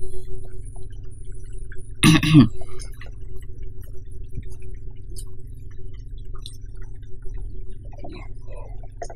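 Steady low electrical hum on the microphone, with a short vocal noise from the narrator, falling in pitch, about two seconds in, and a few faint ticks.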